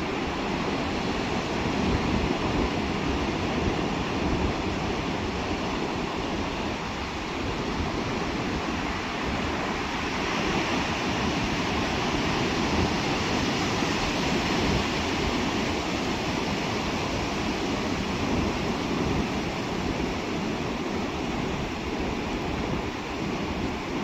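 Pacific Ocean surf breaking and washing up a flat sand beach: a steady, continuous rush of waves that swells and eases only slightly.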